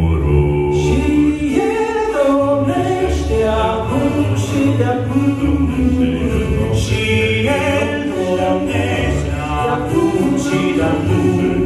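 Male vocal quartet singing a cappella through handheld microphones, in close harmony with held chords over a low bass voice.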